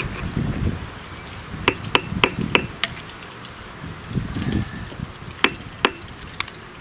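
Sharp metallic taps on a spark plug, its side electrode being tapped down to close the gap. There are five quick taps, then two more a few seconds later.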